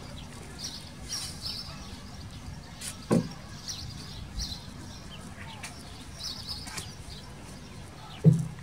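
Small birds chirping over and over in the background, with a single sharp knock about three seconds in and a short dull thump near the end as wooden boards of a raised bed are handled.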